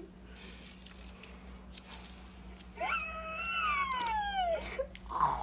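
A long, high-pitched whining cry that slides down in pitch over about two seconds, starting about three seconds in; a short, muffled sound follows near the end.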